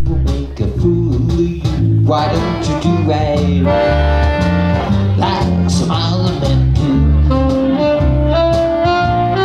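Live band playing with accordion, bass and a steady beat, saxophone among the instruments; near the end a held melody note steps upward.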